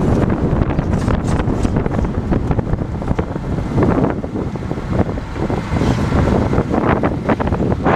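A CB7 Honda Accord on the move, with a steady low rumble and grind from a failed driver-side rear wheel bearing whose ball cage has shattered, and wind buffeting the microphone.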